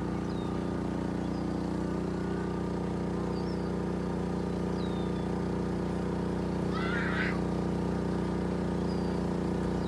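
Steady low hum of a motor running, with faint high bird chirps and a short call about seven seconds in.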